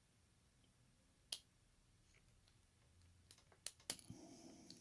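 Quiet, sharp clicks of small metal lock parts (pins, springs and wafers) being handled as a lock is taken apart: one about a second in, then a quick run of three or four near the end.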